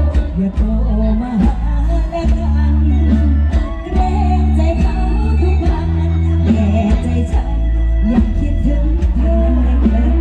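A live band playing loud through a parade sound truck's loudspeakers, with heavy bass and a singing voice over it.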